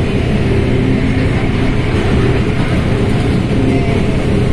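Mercedes-Benz OF1721L bus's diesel engine running steadily at a constant pitch, heard together with the bus's running and driveline noise.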